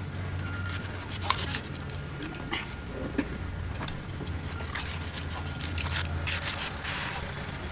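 Knife slicing through the thick, tough skin and flesh of an ocean sunfish's pectoral fin: irregular scraping cuts, over a steady low hum.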